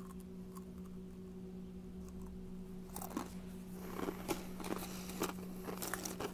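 Light crunching with clicks and taps as a cardboard chip tube is picked up and handled, starting about three seconds in, over a steady low hum.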